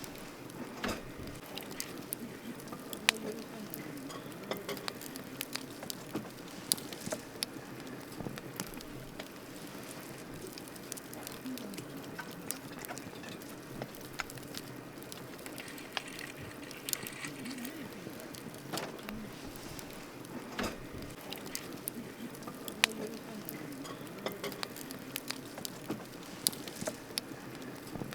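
Wood campfire burning: a steady low crackle with sharp pops scattered irregularly throughout, a few of them louder snaps.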